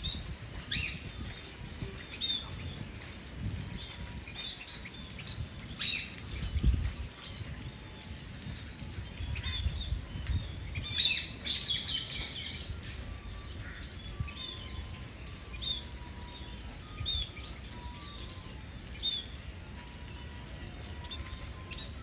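Spice finches (scaly-breasted munias) giving many short, high chirps, with some wing flutter. A few louder calls stand out, the strongest about halfway through, over a low rumble.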